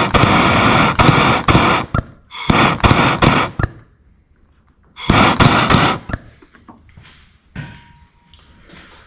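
Close handling noise from hands working on wiring: loud rustling and scraping with sharp knocks, in three stretches of about a second or two each, then only a few faint knocks.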